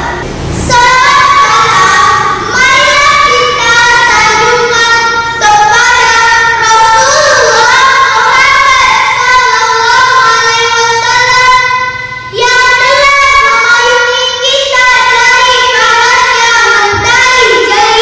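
A young girl singing solo, holding long notes that bend and waver in pitch, with brief breaths between phrases.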